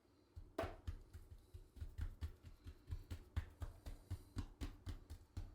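Rhythmic soft thumps with light clicks, about four a second, from black pepper being worked by hand onto chunks of meat for burnt ends.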